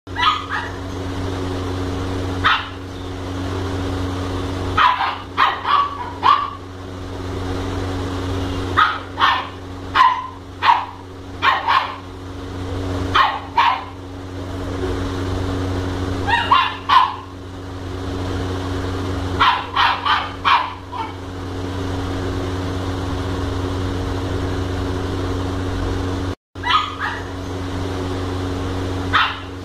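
Labrador puppy barking in short bursts of one to four barks every few seconds, over a steady low hum.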